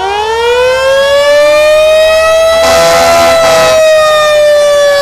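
Vintage fire engine's mechanical siren winding up to a loud wail that peaks near the middle and then slowly starts to wind down, while another siren tone is already sinking as it begins. A short hissing blast comes about two and a half seconds in.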